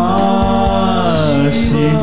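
Devotional song (bhajan) to Shiva sung in Romanian: a voice holds a long, gently falling note at the end of a line, then starts the next line, "Shiva", near the end, over instrumental accompaniment with a steady beat.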